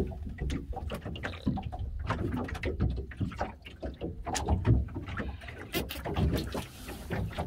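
Small open fishing boat at sea: a steady low rumble of wind and water against the hull, with many irregular clicks and knocks.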